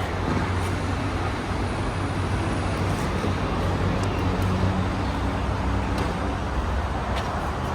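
Car running: a steady low hum of engine and road noise.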